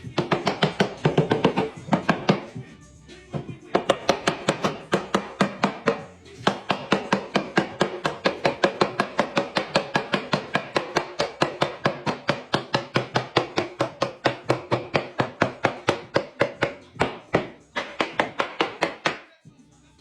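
Rapid, evenly spaced knocks of a tool striking wood, about six blows a second, in runs broken by short pauses.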